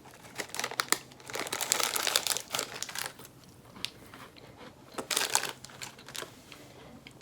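Snack wrapper crinkling as it is handled, in two bouts: a longer stretch of rustling, then a shorter one about five seconds in.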